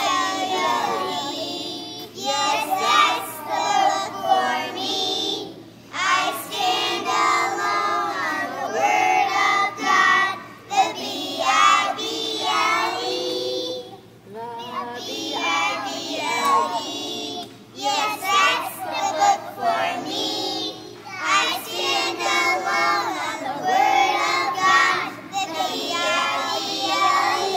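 A group of preschool children singing a song together, line by line, with short breaks between phrases.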